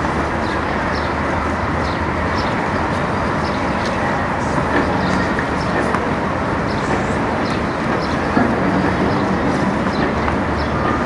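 Steady rushing outdoor background noise, like wind on the microphone or a distant hum of traffic, with faint short high chirps now and then.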